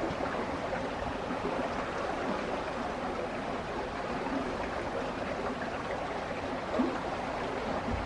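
Steady rushing of flowing stream water, with one brief louder knock near the end.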